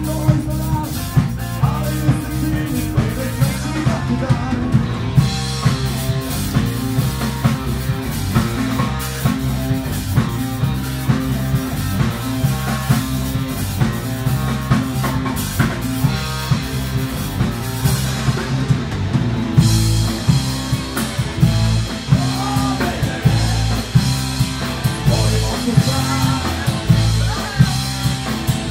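Live rock band playing loudly: electric guitars and a drum kit with a steady beat, and a man singing.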